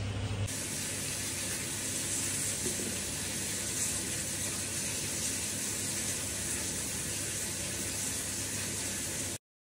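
A steady, even rushing hiss, strongest in the high range and unchanging in level, that cuts off suddenly near the end.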